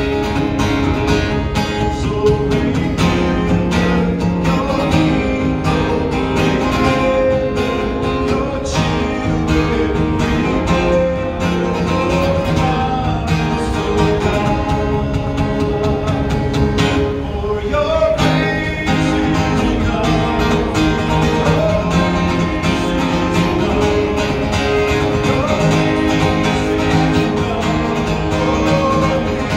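Live solo music: a steel-string acoustic-electric guitar strummed steadily and amplified through small PA speakers, with a man singing into the microphone.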